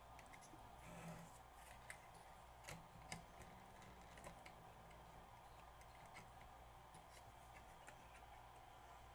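Faint scattered clicks and light rubbing of a hand-held plastic cassette-deck mechanism assembly being handled and wiped with a cotton swab, over a low steady room hum. The sharpest clicks come about three seconds in.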